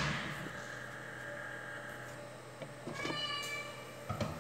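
A ringing clatter fades out at the start. About three seconds in there is a brief high-pitched squeal, and near the end a plastic cooking-oil bottle knocks a few times on the stone countertop.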